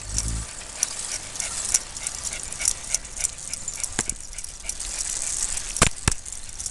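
A bicycle rolling along with a steady hiss full of small rattles and clicks, and a toy poodle running beside it on a leash. There is one sharp knock about four seconds in and two more close together near the end.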